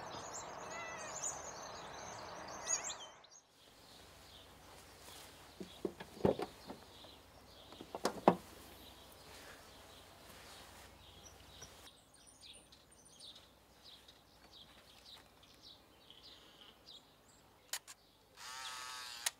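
Quiet outdoor ambience with faint bird chirps, then two soft knocks about six and eight seconds in, and a short burst of noise near the end.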